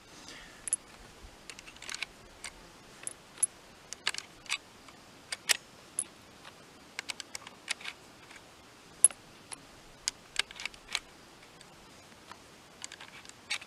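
Irregular sharp metallic clicks of cartridges being loaded through the opened action of a .38-40 Whitney-Kennedy lever-action rifle, with short quiet gaps between them.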